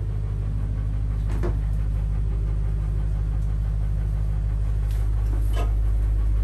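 Steady low drone of the boat's engine running, with a couple of light knocks, one about a second and a half in and one near the end.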